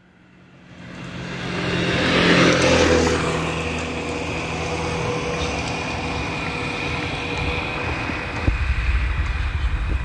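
Steady motor-vehicle engine noise that fades in over the first two seconds, is loudest around two to three seconds in, then holds level. A low rumble comes back near the end.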